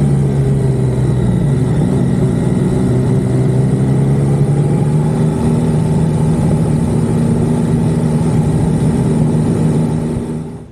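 Motorcycle engine running at a steady cruising speed on the road, a steady engine note with road noise, fading out near the end.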